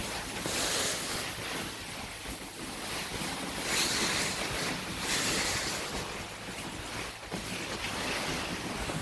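Wind rushing over the microphone on a moving dog sled, a noise that swells and fades every second or two.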